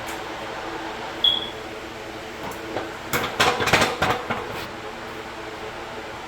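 Metallic clanks and knocks from work at a hydraulic shop press as its jack is let off: a single click about a second in, then a quick cluster of knocks between three and four and a half seconds in, over the steady hum of a shop fan.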